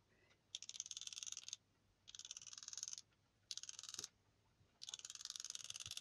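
Paintbrush loaded with white gouache being tapped rapidly to spatter 'snow' dots over a painting: four runs of fast, light clicking taps with short pauses between.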